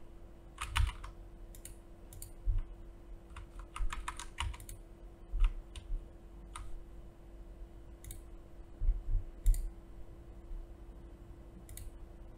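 Irregular clicks of a computer mouse and keyboard, some in quick clusters, over a faint steady electrical hum.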